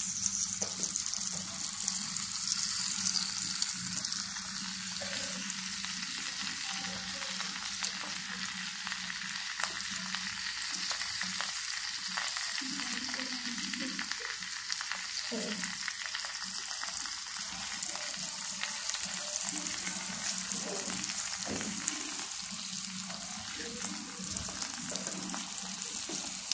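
Battered onion rings and cheese pieces deep-frying in hot oil: a steady sizzle thick with fine crackles.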